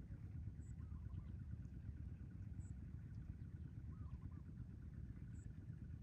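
Faint outdoor ambience: a steady low rumble, with small bird calls over it. A short double chirp comes about a second in and again around four seconds.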